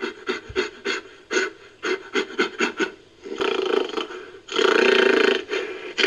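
Creature sound effect for the extinct giant lemur Megaladapis, mixed from gorilla and bear recordings. A run of quick panting huffs, about four a second, gives way about three seconds in to a longer rasping breath and then a louder, sustained raspy call.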